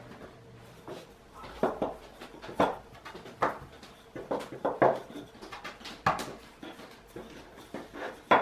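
Wooden rolling pin working a ball of bread dough flat on a wooden tabletop, knocking on the board with each back-and-forth stroke: about a dozen irregular knocks.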